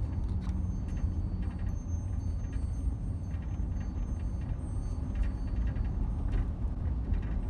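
Steady low rumble of a van driving, heard from inside the cab, with scattered light rattles and clicks throughout.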